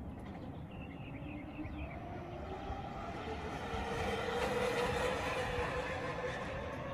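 Black Lightning (V3 BMC) geared hub motor on an electric bike whining under throttle over tyre hum as the bike rides past. It grows louder to its peak about four to five seconds in.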